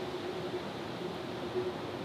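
Steady background hiss with a faint, wavering hum.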